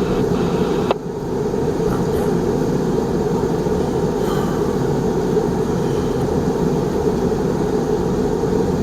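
Steady low rumble of a moving vehicle, with a single sharp click about a second in.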